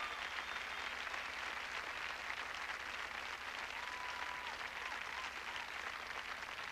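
Audience applauding, a dense steady clatter of many hands clapping that eases off slightly toward the end.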